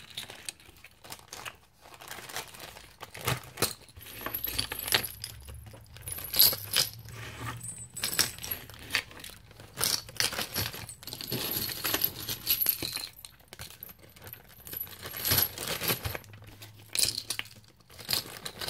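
Resin keychain pendants with metal key rings clinking and jingling as they are handled: many small irregular clicks, some with a light metallic ring.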